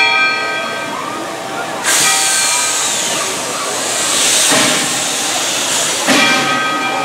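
Steam locomotive's bell ringing, then a loud hiss of steam cutting in about two seconds in and lasting about four seconds, with two heavier bursts near its end. The bell rings on as the hiss stops.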